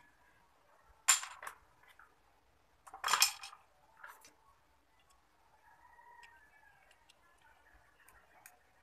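Plastic parts of a small stand fan being handled and set down on a hard surface: two sharp clacks about two seconds apart, a lighter tap, then a few faint ticks near the end.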